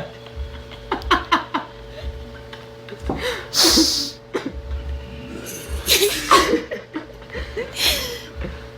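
Laughter in several short bursts, separated by pauses.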